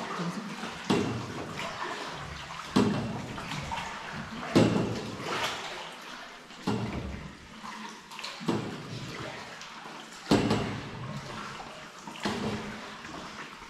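Rowing strokes splashing in water, about one every two seconds, each fading out slowly and echoing off the cave walls.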